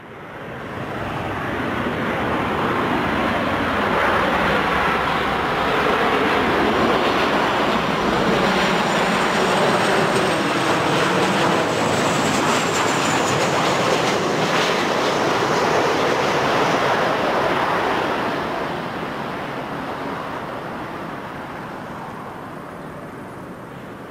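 Boeing 737-800's twin CFM56 turbofan engines on final approach as the jet flies past. The jet noise swells over the first few seconds and holds, with a high whine that slides down in pitch as it passes. It then fades steadily over the last several seconds.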